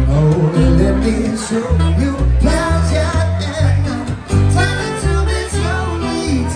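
Live acoustic trio playing: upright double bass plucking a line of separate low notes under a strummed acoustic guitar and saxophone, with a man singing.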